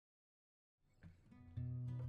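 Silence, then background music fading in about a second in and growing louder.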